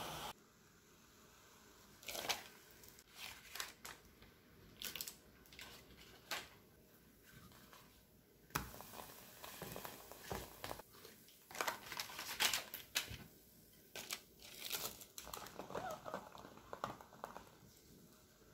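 Irregular kitchen handling sounds: light taps and scrapes of cookware and a silicone spatula working food in a pan, with crinkling.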